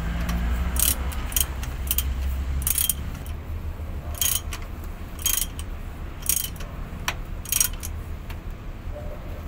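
Hand ratchet wrench clicking in short bursts while bolts on a truck transmission housing are turned, about eight bursts at uneven intervals. A low steady rumble runs underneath.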